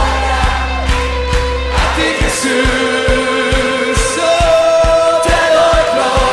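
Christian worship song: voices singing long held notes over a steady beat of about two drum strokes a second. A low bass drone drops out about two seconds in.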